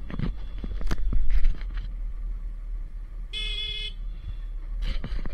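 Motorcycle riding along a rough lane: a steady low rumble with scattered knocks and rattles, and one short horn beep of about half a second a little past the middle.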